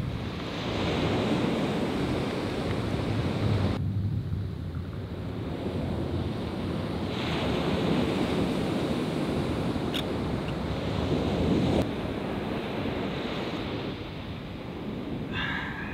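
Ocean surf washing onto the beach in a steady rush that swells and eases, with wind buffeting the microphone.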